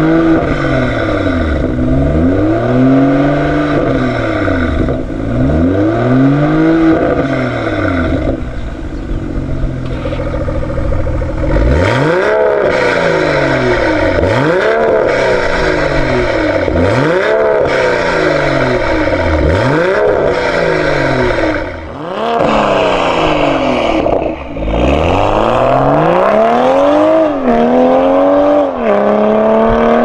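The BMW M240i's 3.0-litre turbocharged B58 inline-six runs through a Fi Exhaust valved catback and 200-cell downpipes. It revs again and again from idle, first with the exhaust valves closed. From about twelve seconds in the revs are louder, with the valves open. Near the end it accelerates hard, its pitch climbing and dropping back at each gear change.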